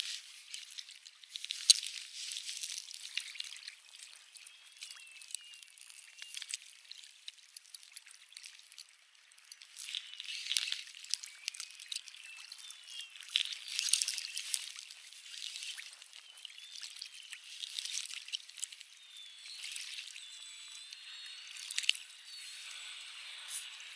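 Water trickling and lapping, with many small sharp clicks and splashes and a few louder swells.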